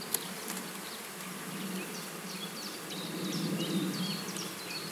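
Honeybees buzzing at an opened hive, a steady hum that swells a little after about three seconds. A sharp click comes just after the start, and short high chirps sound in the second half.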